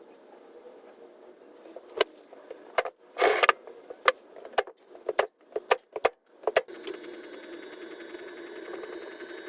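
Brad nailer firing a quick series of about ten sharp shots into wood, with a short hiss among the first few. About seven seconds in, a steady mechanical hum starts up and keeps running.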